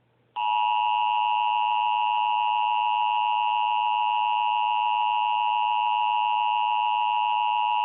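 Emergency Alert System attention signal: a loud, steady two-tone alarm (two close pitches near 1 kHz, the 853 and 960 Hz pair) that starts about half a second in and holds without a break, announcing an emergency weather warning.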